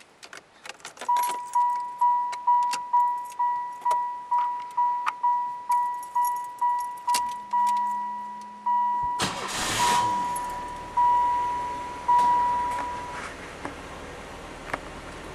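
1993 Chevy Corsica's dashboard warning chime dinging rapidly, about two to three times a second, as the ignition is switched on. About seven seconds in, a hum starts as the engine cranks. Just after nine seconds the engine catches with a brief loud rush and settles into a steady low idle, while the chime slows and stops a few seconds later.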